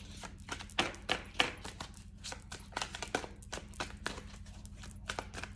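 Tarot cards being handled and shuffled: a quick, irregular run of light clicks and taps, over a faint steady electrical hum.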